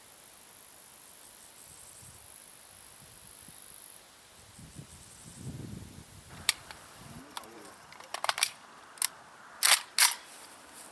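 Sharp metallic clicks and clacks of a Saiga 308 carbine being handled and readied for firing, starting about six seconds in and coming in quick clusters, with the loudest pair near the end.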